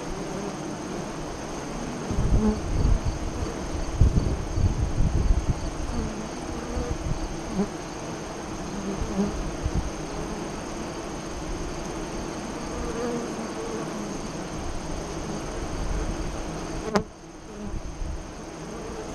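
Honey bees buzzing at the hive entrance, with louder, deeper buzzing between about two and six seconds in. A sharp click comes near the end, after which the buzzing is briefly quieter.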